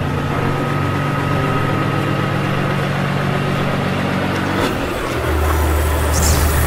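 Custom Peterbilt semi truck's diesel engine idling with a steady low hum, dropping to a deeper tone about five seconds in.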